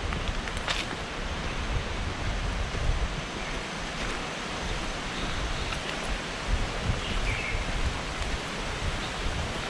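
Steady rushing outdoor ambience with wind buffeting the microphone and a few faint high chirps, one about three and a half seconds in and a clearer one about seven seconds in.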